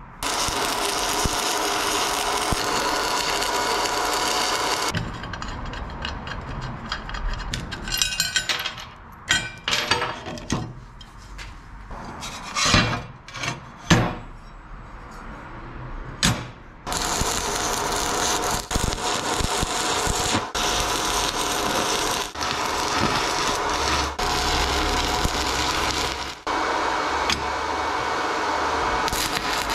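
Steady workshop noise, broken in the middle by about twelve seconds of clicks and knocks as small steel parts are handled and set down on a steel welding bench.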